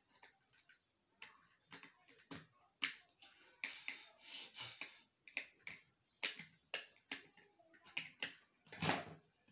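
Irregular sharp clicks and short scrapes of a small screwdriver working against the plastic housing of a fan-type LED bulb's panel.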